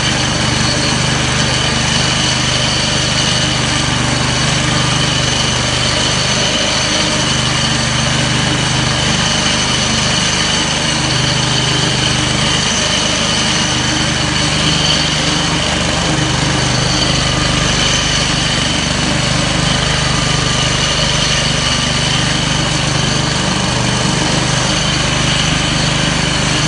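Petrol-engined DFG floor grinder running steadily, grinding with PCD (polycrystalline diamond) tooling.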